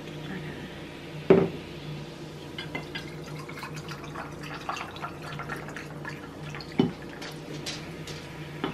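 Carbonated ginger beer poured from a glass bottle into copper mugs over ice, with fizzing, crackling and dripping. Two sharp clinks stand out, the louder one about a second and a half in and another near seven seconds.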